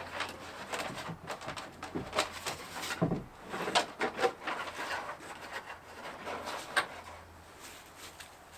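Irregular clicks, knocks and rubbing of parts being handled and fitted during a truck camper installation, with one sharper knock near the end.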